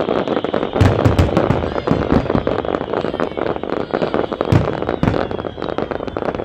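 Fireworks display: a dense, continuous crackling of many small bursts, with heavier booming shell bursts about a second in and again near four and a half and five seconds.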